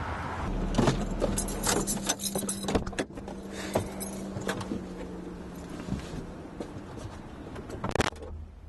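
Someone getting into a parked car: car door and seat handling with keys jangling and a run of clicks and knocks, over a low steady hum. A loud thump near the end as the car door shuts.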